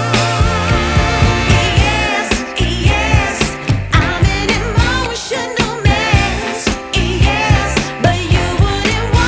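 Background music: a song with a wavering vibrato singing voice over a steady drum beat.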